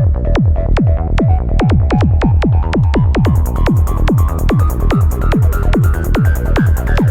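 Goa trance music: a fast, steady four-on-the-floor kick drum under a synth line that rises steadily in pitch. Bright hi-hats come in about three seconds in.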